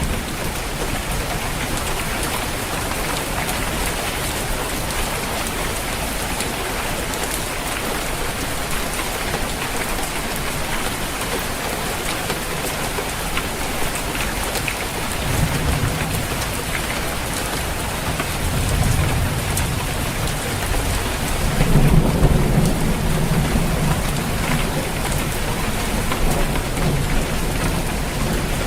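Steady rain drumming on a roof, with thunder rumbling in low about halfway through and growing louder over the last several seconds.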